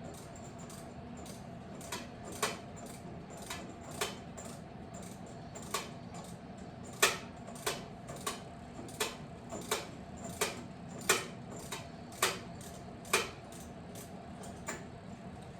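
Hand socket ratchet snugging up long riser bolts: sharp metallic clicks, irregular, about one to two a second, with a faint steady hum underneath.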